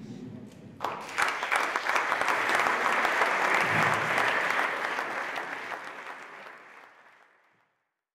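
Audience applause: many people clapping, starting about a second in and dying away near the end.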